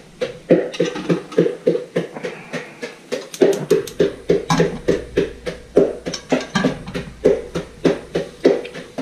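Pestle pounding in a mortar with a steady rhythm of about four strikes a second, crushing the ingredients for a chilli paste.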